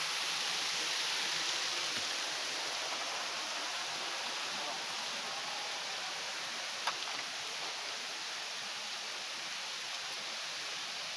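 Waterfall rushing: a steady, even hiss of falling water, with a single brief click about seven seconds in.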